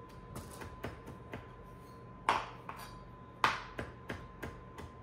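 Chef's knife chopping dill on a cutting board: irregular knocks of the blade against the board, about two a second, with two louder chops around the middle.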